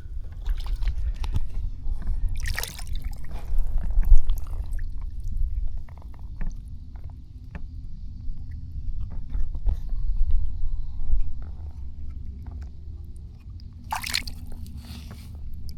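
Water sloshing and splashing at the side of a kayak, with knocks and clicks of handling, while a caught snook is held in the water and let go. A short splashy surge comes about two and a half seconds in and again near the end, over a steady low rumble.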